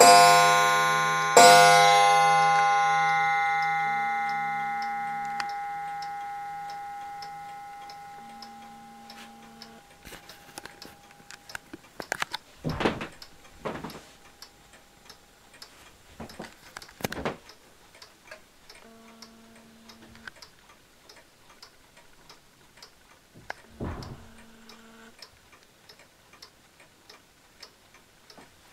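A clock bell is struck twice, about a second and a half apart, and rings on in a long fading decay. Then a clock's escapement ticks steadily, with a few louder knocks in between.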